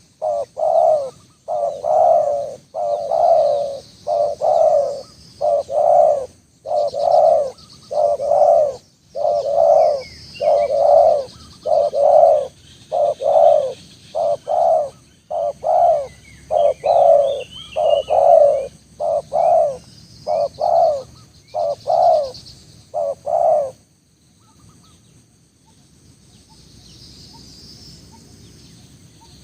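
Spotted dove cooing: a long series of low coo notes, one after another, that stops about 24 seconds in. Faint chirps of small birds sound behind it.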